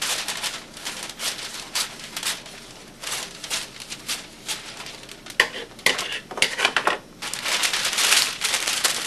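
A thin sheet being handled and test-fitted, crinkling and crackling in irregular bursts that grow louder and denser after about five seconds.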